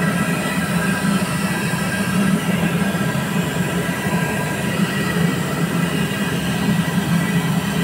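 Steady low mechanical drone with faint, steady high whining tones above it, running at an even level without a break.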